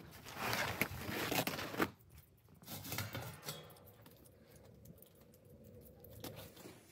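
Cloth cover being pulled off a tandoor: a loud fabric rustle lasting about a second and a half near the start, then a shorter rustle about three seconds in.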